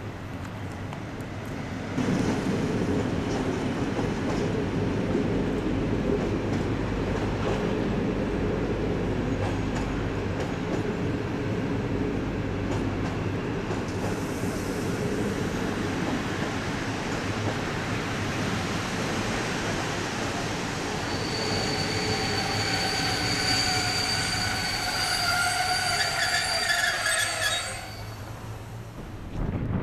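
Passenger train hauled by a PKP EP07 electric locomotive running in beneath, with a steady rumble of wheels on the track. From about two-thirds of the way in, a metallic squeal with several steady high tones rises over it as the train slows into the station. The sound drops off abruptly near the end.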